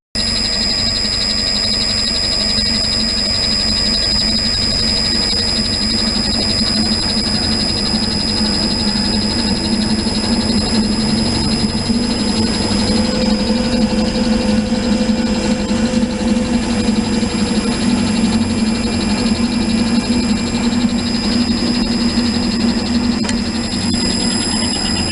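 Cylinder head surfacing machine running steadily while milling the head of a V6 marine engine, a constant machine noise with a high steady whine.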